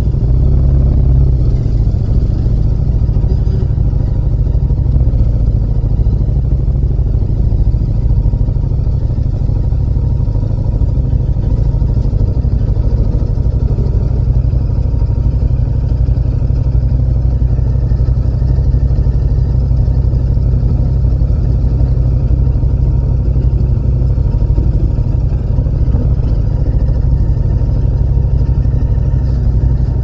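Yamaha MT-07's 689 cc parallel-twin engine running at low speed in slow traffic. Its muffler has an almost 4-inch outlet and gives a steady, deep bass rumble with no big revs.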